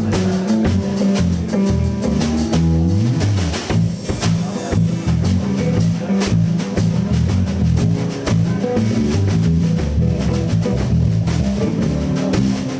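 Live electric blues band playing an instrumental passage: electric guitar, bass guitar and drum kit keeping a steady shuffle beat, with no singing.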